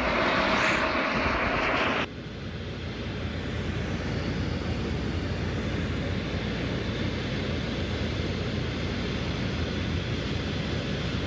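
Tour helicopter noise: loud, even rotor and engine noise that cuts off suddenly about two seconds in, then a quieter, steady helicopter drone.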